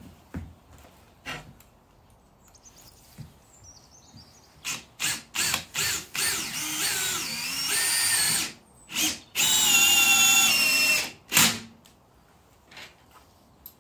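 Cordless drill-driver driving screws into a bifold door cill. After a few light clicks come several short trigger blips about five seconds in, then a longer run whose whine bends and rises in pitch as the screw loads the motor. A steady high whine follows for under two seconds, and a last short blip comes near eleven seconds.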